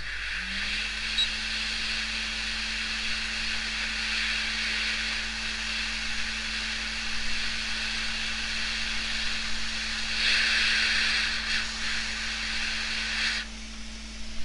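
Hot-air rework station blowing on a laptop motherboard: its fan hum rises in pitch as it starts, then holds steady under a steady hiss of air. The hiss swells briefly near the end, then cuts off while the fan hum carries on.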